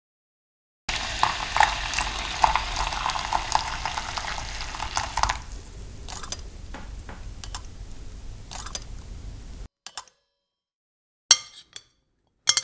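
Soup being stirred and served: liquid sloshing with utensils clinking against dishes, busiest for the first few seconds and then thinning to scattered clinks. A few short sharp sounds follow near the end.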